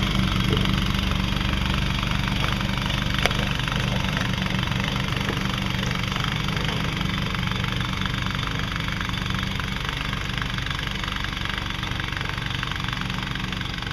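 ATV engine idling steadily, with a single sharp click about three seconds in.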